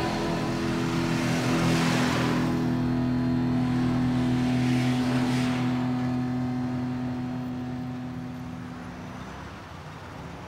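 A bus engine running steadily with a low hum, with two short hissing swells. The engine fades away over the last few seconds.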